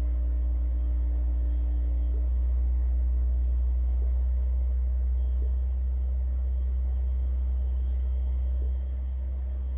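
Subwoofer with a dish of water on its cone, playing a steady deep bass tone that makes the water ripple. The tone drops slightly in level near the end.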